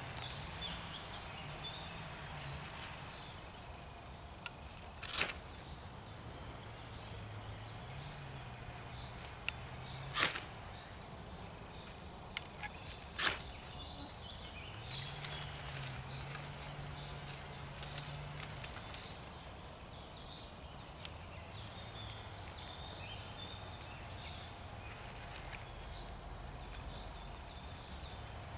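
Ferrocerium rod scraped hard with a knife, three loud, sharp rasps about 5, 10 and 13 seconds in, with a few lighter scrapes between, throwing sparks onto dry tinder. Light scattered crackling follows as the tinder catches.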